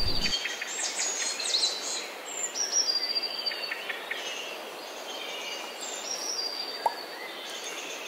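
Birds singing over a steady background hiss: high, drawn-out whistles that fall slightly in pitch, recurring every few seconds, among quick chirps.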